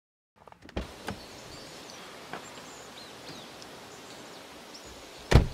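Quiet outdoor air with faint bird chirps and a few light knocks as someone steps out of a car onto gravel, then a car door slammed shut with one loud thump near the end.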